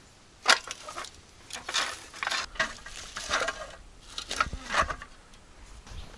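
Old rusty iron wheeled hand tool being lifted and moved, its metal parts clanking and scraping in a series of irregular knocks.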